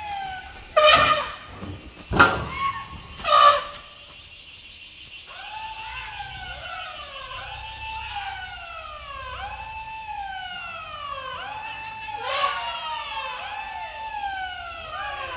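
Elephant trumpeting: three loud, harsh blasts in the first few seconds and another near the end. From about five seconds in, a long run of overlapping wailing calls follows, each rising quickly and then falling slowly, about one a second.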